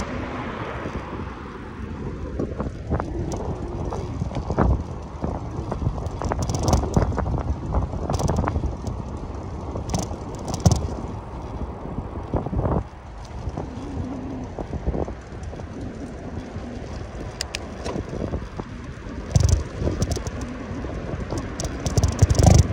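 Riding a bicycle along a paved cycle lane: steady rushing wind on the microphone and tyre noise, with repeated knocks and rattles as the bike goes over bumps in the surface, the sharpest near the end.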